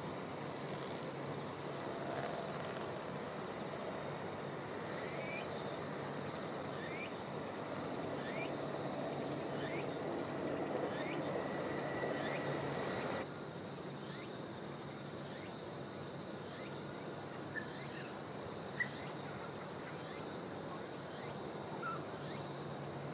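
Outdoor field ambience: a steady, pulsing high chirring from insects, a bird giving short rising chirps again and again, and a low rumble of distant noise that drops off suddenly about halfway through.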